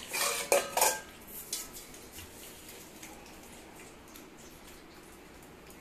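Steel bowl clanking about three times in the first second, with a brief metallic ring, then a faint tick and low room noise.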